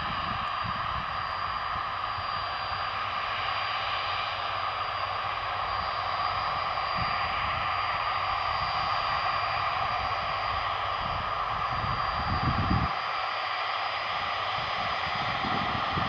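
Boeing 747-400 jet engines running steadily at low, taxiing power: an even jet noise with a thin high whine held throughout, over an uneven low rumble.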